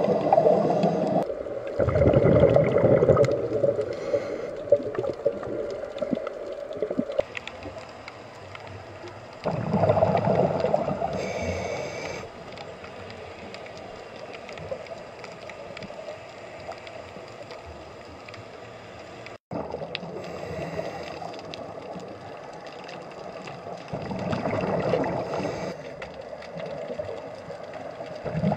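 Scuba diver's exhaled bubbles gurgling and rumbling past an underwater camera in long swells a few seconds apart, over a steady low underwater hiss.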